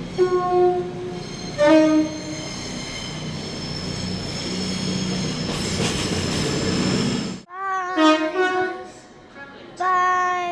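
Two-tone train horn: a short high blast, then a lower one, followed by several seconds of a train running past with a rising rumble and hiss. After a sudden cut, more horn blasts: a few short ones, then a longer held note near the end.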